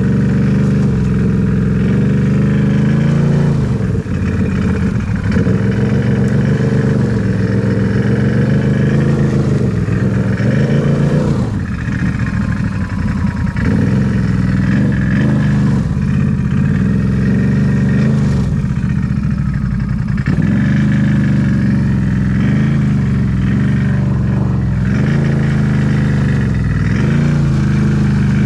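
Off-road vehicle's engine running hard, revving up and down with the throttle while riding off-road, easing off briefly about a third of the way through before picking up again.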